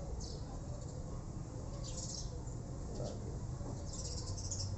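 Birds chirping in short, high calls every second or so over a low, steady background rumble.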